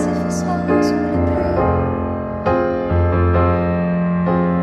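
Steinway grand piano played solo: sustained chords, with a new chord struck about every half second to second.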